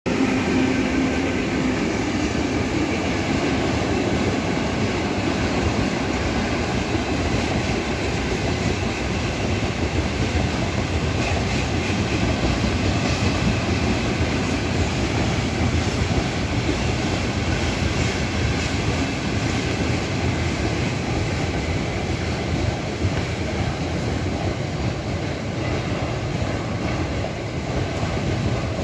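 A mixed freight train rolling past behind a PKP Cargo ET41 electric locomotive. There is a steady, continuous rumble of the wagons with wheel clatter on the rails.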